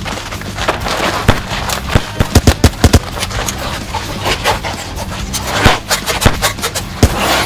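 Foam blaster shots over background music: scattered sharp shots, with a quick burst of about six a little over two seconds in.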